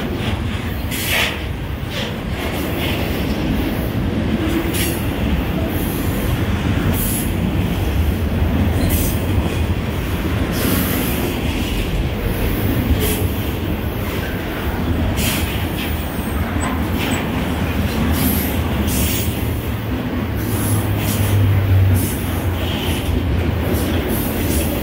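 Double-stack intermodal container train rolling past: a steady rumble of steel wheels on rail, with short sharp clicks and squeaks now and then. The rumble swells a little about three-quarters of the way through.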